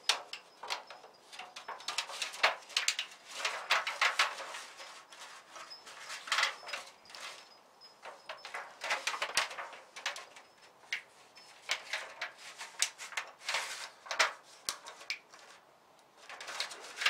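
Thin aluminium foil oven liner crinkling and crackling in irregular clusters as its scored edge is folded up by hand into a wire channel.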